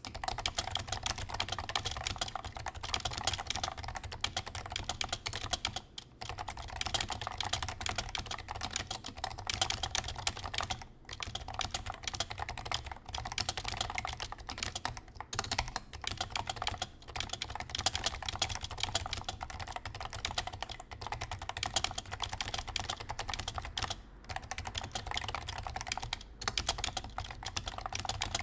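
Fast typing on a Leopold FC660C Topre keyboard fitted with light 50 g BKE Redux domes, Novatouch sliders and GMK keycaps: a dense, continuous stream of keystrokes, broken by short pauses every few seconds.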